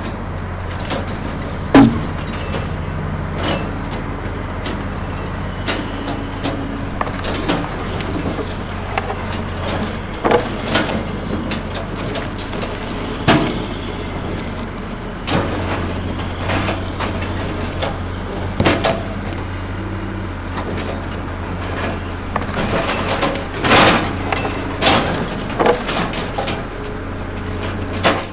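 A heavy engine running steadily at a low, even pitch, with frequent sharp knocks and clacks over it.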